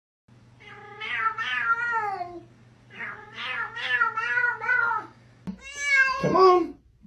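Domestic cats meowing: two long, wavering meows, then a shorter meow from a second cat that falls in pitch near the end.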